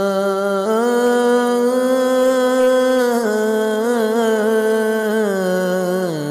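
A male voice singing a naat unaccompanied, drawing out long held notes with no clear words. The pitch steps up about a second in, wavers in an ornament around the middle, and slides down near the end.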